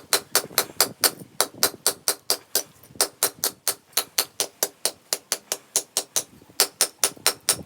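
Rapid, even hammer blows on metal, about five a second, with two short lulls where the strikes come softer.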